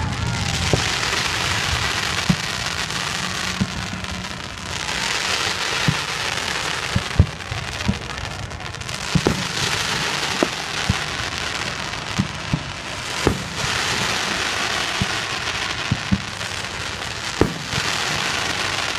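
Fireworks crackling and hissing in a steady, swelling wash of sound, with scattered sharp pops and bangs throughout.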